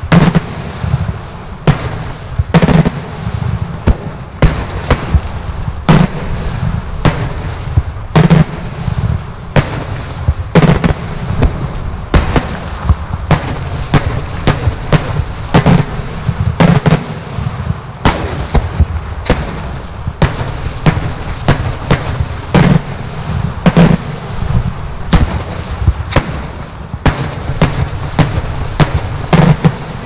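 Daylight fireworks salutes bursting in the sky in rapid, irregular succession, roughly one to two sharp bangs a second over a continuous low rumble.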